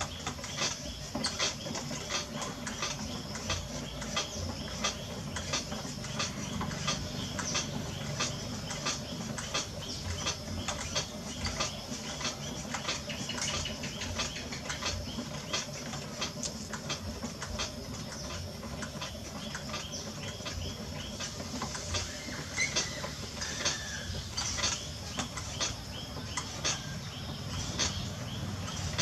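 Potter's wheel turning while wet clay is thrown on it by hand: a low hum with a run of quick, fairly even clicks.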